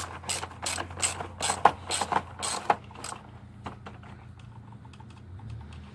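Ratchet wrench with a socket on an extension clicking in quick, irregular strokes as it tightens the oil filter housing cap. The clicking thins out after about three seconds.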